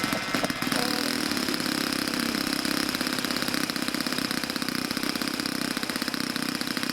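Small model-aircraft engine, most likely the Seagull Spacewalker 46's, running steadily with a fast, even beat.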